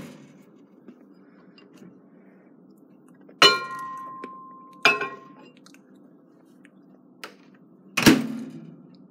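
A bowl set down inside a microwave with a ringing clink, and a second clink about a second and a half later. Near the end comes a loud thump as the microwave door shuts.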